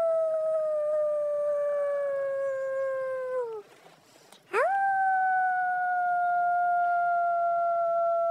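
Two long canine howls. Each swoops up sharply in pitch, then holds and sags slowly lower. The first breaks off about three and a half seconds in; after a second's pause, the second begins and carries on.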